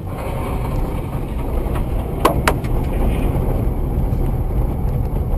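Steady engine and road noise of a car driving, with two sharp knocks about a quarter second apart just over two seconds in.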